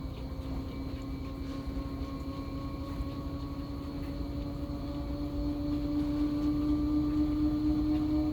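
Washing machine running, its motor hum slowly rising in pitch and growing louder over a low rumble, as the drum speeds up.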